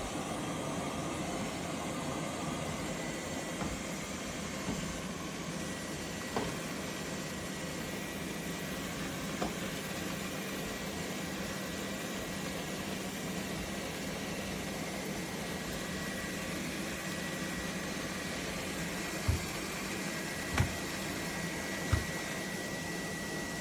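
LEFANT M320 robot vacuum running: steady suction-fan noise with a thin high whine, and three short low knocks near the end.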